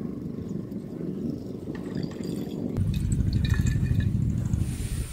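Fuel trickling from a squeezed plastic fuel bottle through a thin tube into a motorcycle carburetor, a faint liquid fill sound, under a steady low rumble that grows louder about halfway through.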